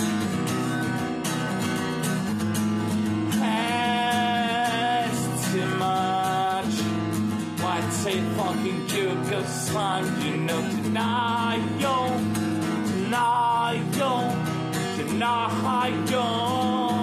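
Steel-string acoustic guitar strummed in a steady rhythm of chords. From about three seconds in, a wordless, wavering high vocal melody runs over it.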